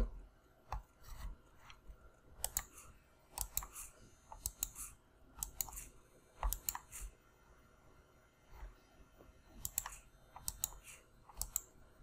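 Computer mouse button clicking repeatedly, irregular single clicks and quick runs of two or three, sometimes clicked too fast for the remote-control app to register.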